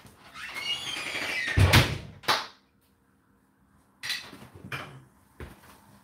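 Whirlpool dishwasher running: a rushing sound, then two loud clunks and a sharp click, a moment of dead silence, then scattered light knocks and clicks.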